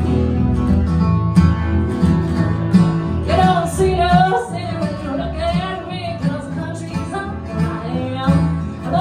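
Country band playing: strummed acoustic guitar over a steady bass line, with a wavering lead melody with vibrato coming in about three seconds in.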